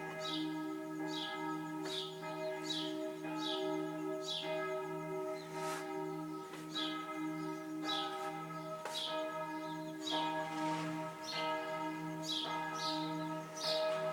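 Church bells ringing a full peal: strike after strike, about two a second, overlapping over a steady lingering hum.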